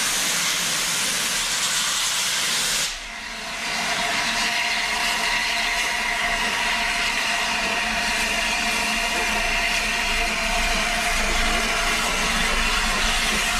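Peppercorn A1 steam locomotive 60163 Tornado letting off a loud hiss of steam, which cuts off sharply about three seconds in. A steadier hiss follows as the engine draws closer.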